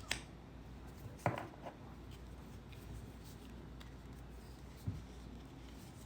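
Oracle cards being handled while flipping through the deck: a few light clicks and taps, the sharpest just over a second in, and a soft thump later on.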